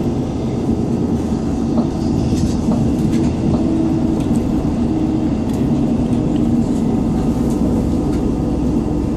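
Class 158 diesel multiple unit running at speed, heard from inside the passenger saloon: a steady, even drone of the diesel engine and wheels on the rails, with a few faint clicks.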